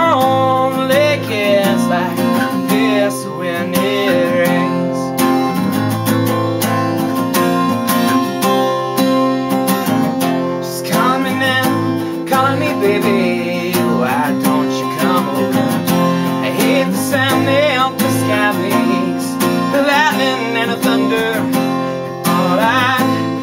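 Acoustic guitar strummed steadily as a country song accompaniment, with a man's voice singing a wavering melody over it in stretches.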